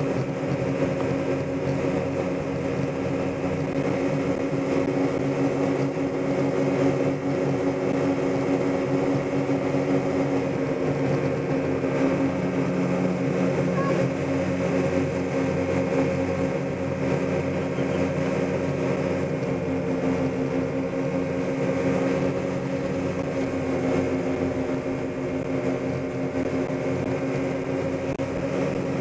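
Motorboat engine running steadily at speed with a droning tone that wavers slightly, over the rush of water churned up in the wake.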